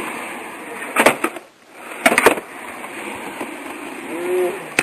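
Skateboard wheels rolling on a concrete mini ramp, a steady rumble, with sharp clacks of the board about a second in and again about two seconds in.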